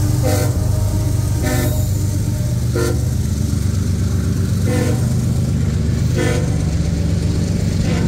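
Freight train of refrigerated boxcars rolling past with a steady low rumble, its wheels clanking every second or two over the rail joints and crossing.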